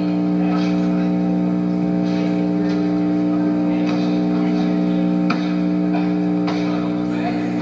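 Steady electrical buzz of evenly stacked, unchanging tones on an old videotape soundtrack, with a few faint knocks, about five and six and a half seconds in.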